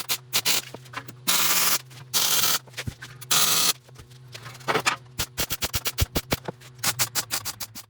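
MIG welder laying tack welds on steel: three half-second bursts of crackling arc, then a quick run of short blips, about four or five a second, over the welder's steady hum.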